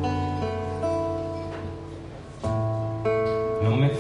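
Nylon-string acoustic guitar playing chords that ring on between sung lines, with a new chord strummed about two and a half seconds in.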